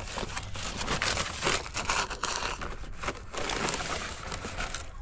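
Rustling and crinkling with many short crackling clicks, the sound of material being handled or crushed.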